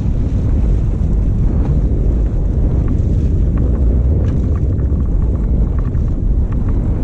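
Small motorboat running at speed through choppy water: steady, heavy wind noise on the microphone over water rushing and splashing along the hull.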